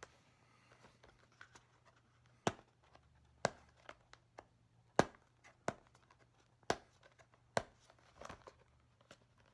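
Fingernails picking and scratching at the sealing tape on a small cardboard box, making irregular sharp clicks and crinkles. About seven louder clicks come from a couple of seconds in, with fainter ticks between them.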